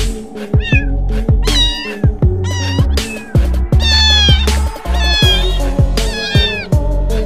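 Domestic cat meowing in a run of short, high-pitched calls, over background music with a heavy, steady bass beat.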